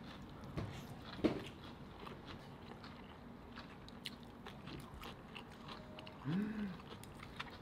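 People eating a meal: quiet chewing with scattered small clicks of chopsticks and tableware, and a sharper knock about a second in. A short rising-and-falling hum is heard about six seconds in.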